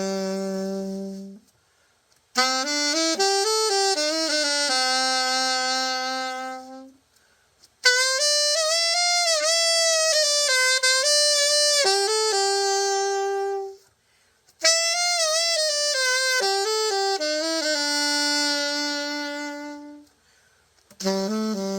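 Yanagisawa WO1 alto saxophone played solo. It plays a slow melody in four phrases, with short breath pauses between them and vibrato on the longer held notes.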